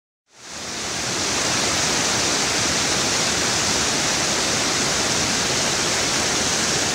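Creek water rushing over boulders in small rapids: a steady whitewater hiss that fades in over the first second or so.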